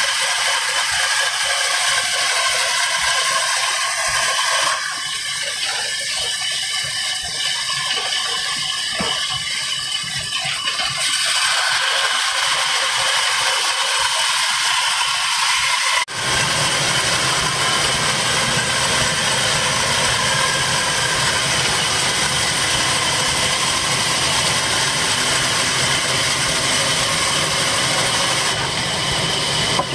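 Band saw, belt-driven by a Ruston Hornsby diesel engine, ripping a long wooden plank lengthwise: a loud, steady rasping noise. About halfway through it suddenly turns fuller and deeper.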